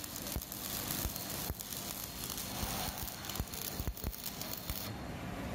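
Stick welding arc burning on steel: a steady frying, crackling hiss broken by irregular sharp pops as the electrode burns.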